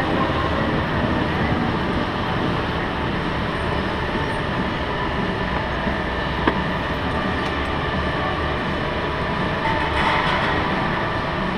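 Electric indoor rental go-kart running on the track, heard from the driver's seat: a steady rumble and rattle of the chassis and tyres with the motor running under it. A single sharp click about six and a half seconds in.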